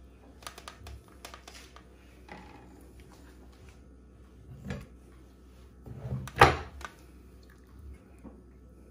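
Light clicks and taps of hands laying grilled courgette slices into a stainless steel ring mould in a metal pan, with a louder knock about six and a half seconds in.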